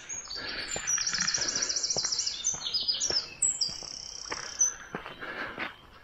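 A songbird singing a high song of about four and a half seconds: a rapid trill, then several short high phrases stepping up and down in pitch.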